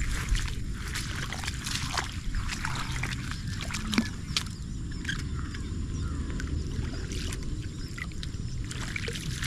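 Steady wind rumble on the microphone, with scattered light clicks and a sharper knock about four seconds in.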